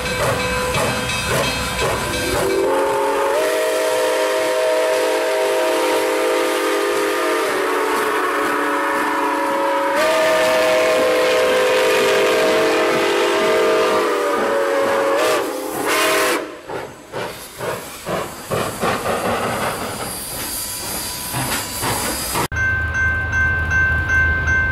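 Nickel Plate Road 765, a 2-8-4 Berkshire steam locomotive, sounding its chime whistle in two long blasts over escaping steam hiss, then chuffing as it works away. Near the end a cut brings in a different, steady low rumble.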